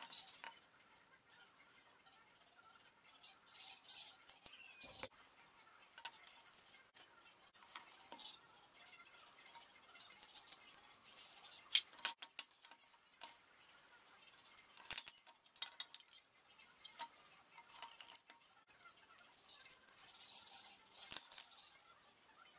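Faint, scattered taps and clicks of wood pieces, a pencil and a metal combination square being picked up, set down and handled on a wooden workbench while a board is marked out, the sharpest knocks about halfway through.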